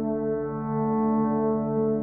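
Background music of slow, sustained chords in a mellow, horn-like tone.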